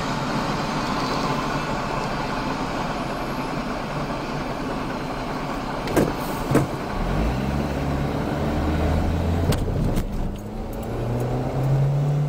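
A car pulling away from a stop and speeding up, its engine note rising, dipping briefly near ten seconds in and rising again. Before it there is a steady rushing noise, and two sharp knocks come about six seconds in.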